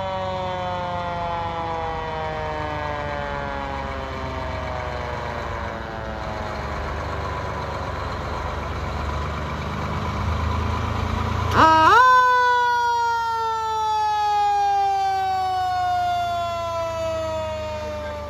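Fire truck siren in a long, slow, falling wail. About two-thirds of the way through it winds sharply back up to its loudest and then slowly falls again, the way a mechanical siren coasts down. Under it runs the low rumble of the truck's engine, swelling as the truck passes close.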